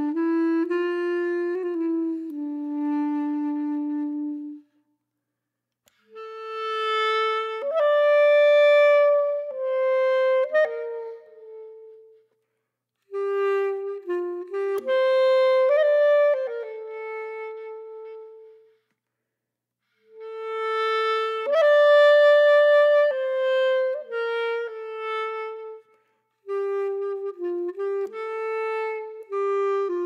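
Background music: a single instrument, wind-like in tone, playing a slow melody of held notes in phrases a few seconds long, with short silent gaps between the phrases.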